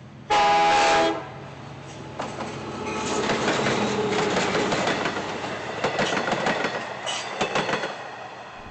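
LIRR DE30AC/DM30AC diesel locomotive's air horn sounding one short blast of about a second, a chord of several tones. Then the train rolls by, with a rush of noise and wheels clattering over the rail joints.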